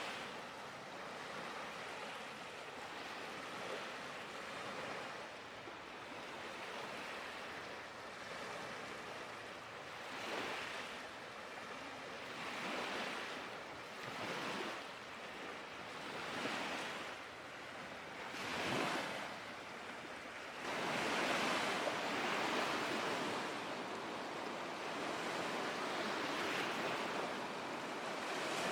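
Small lake waves washing and splashing against the shore, coming in surges every couple of seconds. They grow louder and fuller about two-thirds of the way in.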